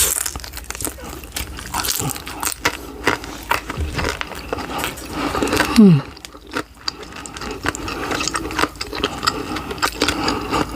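Close-up eating of fried dumplings dipped in soy sauce: crunchy bites and wet chewing with many small crisp clicks. About six seconds in there is a short falling hum from the eater.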